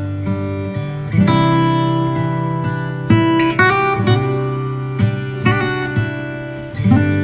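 Background music: acoustic guitar playing plucked and strummed chords, a new chord every second or two.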